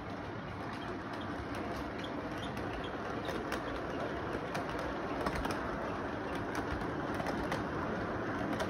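LEGO train rolling along plastic track: a steady rumbling whir with many small irregular clicks from the wheels, growing a little louder as the cars pass.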